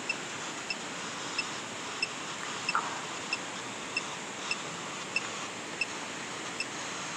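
Steady rushing of a nearby waterfall, with faint short high electronic pips repeating evenly about every two-thirds of a second.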